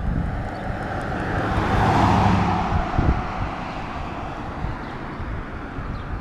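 A motor vehicle driving past, its tyre and engine noise swelling to a peak about two seconds in and then fading, over a steady low rumble.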